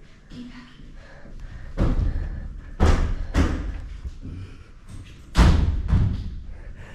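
A door banging: four heavy thuds, the loudest a little past five seconds in.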